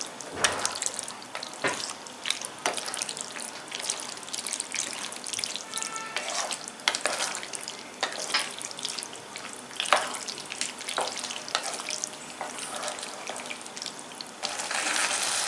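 Tomato-sauced shell pasta and sausage sizzling and bubbling in a pan over high heat, with a spatula stirring and scraping through it at times and scattered sharp pops and clicks.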